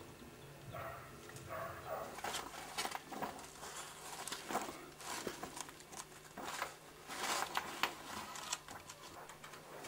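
Old, brittle newsprint pages rustling and crackling as they are turned and handled, in irregular bursts throughout, over a low steady hum.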